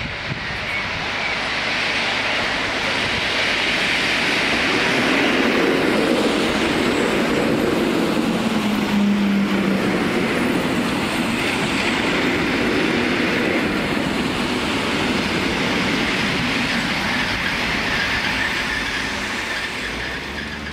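EN71 electric multiple unit running past on the rails, its wheels and bogies rumbling and clacking over the track. Near the end a faint high squeal comes in as it brakes for the stop.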